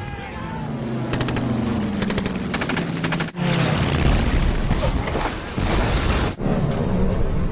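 Several bursts of rapid machine-gun fire among booms, as in a battle scene's soundtrack, broken by two abrupt cuts about a third of the way in and near the end.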